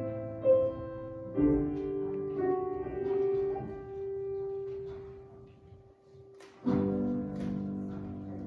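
Hymn music played on a keyboard, with held chords that change every second or two. It fades almost out about six seconds in, then a new chord comes in loudly.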